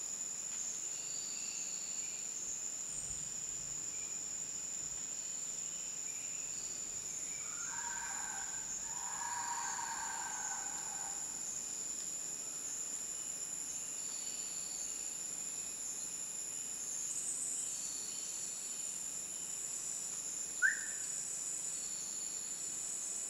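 Tropical forest ambience: a steady high-pitched insect drone with shorter insect calls repeating above it. A bird calls for a few seconds about a third of the way in, and a single sharp chirp, the loudest sound, comes near the end.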